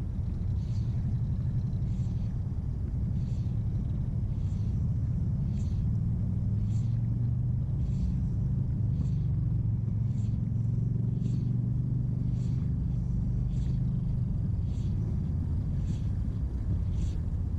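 A steady low rumble with a hum, like a distant engine, that swells slightly through the middle, with faint soft ticks repeating about once a second.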